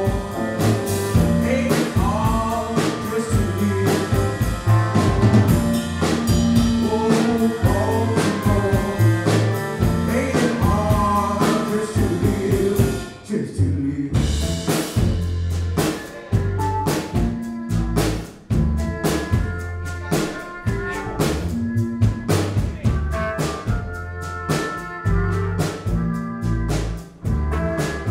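Live band music: a man singing over electric guitar, bowed cello and drums. The singing stops about halfway through and the band plays on with steady drum hits.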